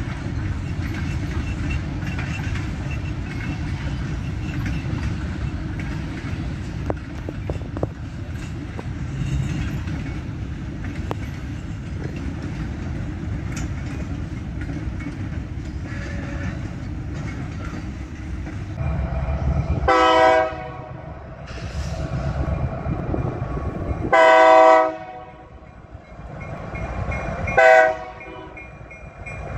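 Freight cars rolling past with a steady low rumble and clatter. About two-thirds of the way in, a diesel locomotive's horn sounds two long blasts and then a short one, the start of the long-long-short-long grade-crossing signal.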